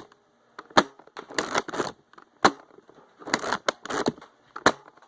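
Nerf foam-dart blasters being primed and fired: single sharp snaps about a second in, halfway through and near the end, with short clattering stretches in between.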